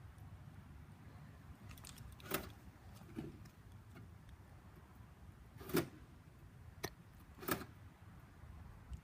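Car door lock clunking several times: three sharp clunks a few seconds apart, with a couple of lighter clicks between them.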